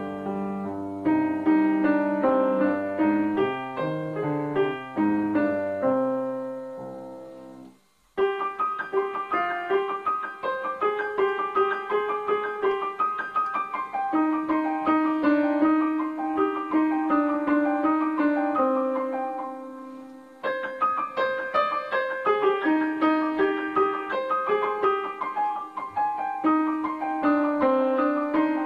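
Piano music. It fades out to a brief silence about eight seconds in, then a new piano piece begins, dipping again and picking up near twenty seconds in.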